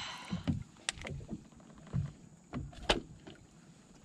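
Small waves lapping and slapping against the bass boat's hull: a string of short low thumps, with two sharp knocks about a second in and near three seconds, the second the loudest.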